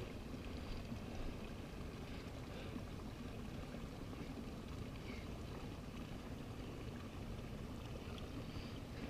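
Steady low rumble of a mountain bike rolling along a gravel track, with faint scattered ticks of stones and wind on the microphone.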